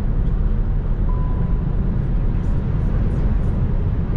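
Steady road and wind noise inside the cabin of a Volkswagen ID.3 electric car at autobahn speed, around 130–140 km/h: a constant rumble heaviest in the low end. A short, thin steady tone sounds about a second in.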